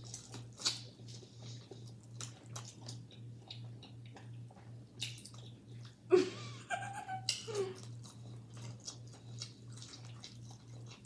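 Close-mic chewing and lip-smacking of someone eating corn on the cob, with many short wet clicks. A brief voiced sound comes a little after six seconds and again a second or so later, over a low hum.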